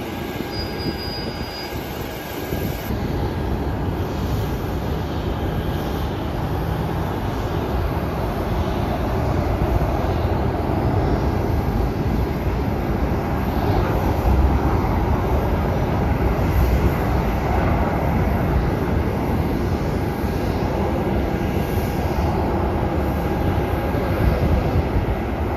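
Jet engines of a Southwest Boeing 737 taxiing on the airport apron, a steady deep rumble that grows somewhat louder after the first few seconds.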